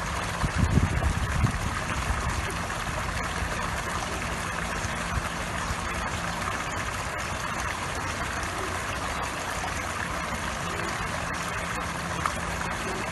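A pond fountain's water jet, spouting from a stone squirrel statue, splashing steadily onto the water surface, with a steady low hum underneath. A few low rumbles in the first second or so.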